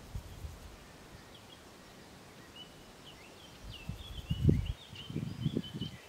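A small songbird chirping and twittering in a quick, high series over the second half. Wind gusts rumble against the microphone from a little before the middle, loudest about four and a half seconds in.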